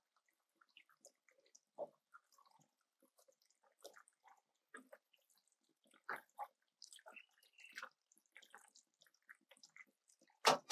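Thick creamy pasta sauce bubbling in the pot: faint, irregular little pops and plops. A brief louder burst right at the end.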